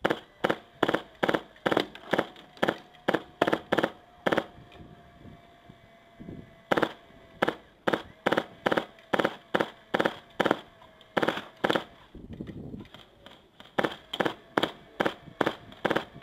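Airsoft rifle firing single shots in quick succession, about two to three sharp cracks a second, in several strings broken by short pauses.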